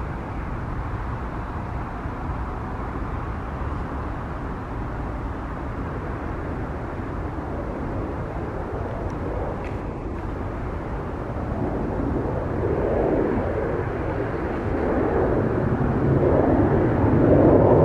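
Boeing 787-9's turbofan engines at takeoff thrust, heard from a distance as a low, even rumble. It grows louder over the second half as the airliner rolls down the runway toward the microphone.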